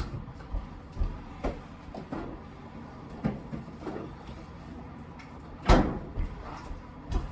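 A Pepsi being handled and opened: a series of light knocks and clicks, then a louder sharp crack about six seconds in.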